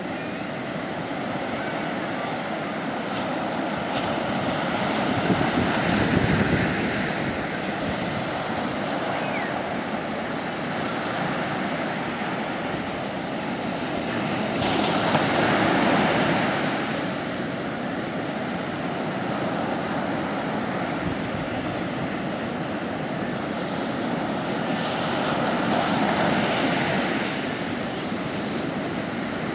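Mediterranean sea waves breaking and washing up the beach, swelling three times about ten seconds apart, with a low wind rumble on the microphone.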